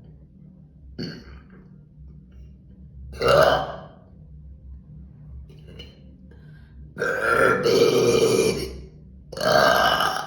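A woman burping loudly three times: a short burp about three seconds in, a long drawn-out one of nearly two seconds about seven seconds in, and another short one near the end.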